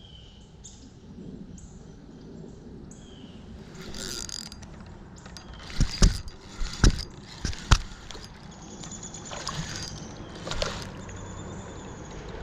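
A steady low rushing noise with a cluster of sharp clicks and knocks about halfway through, like fishing tackle being handled.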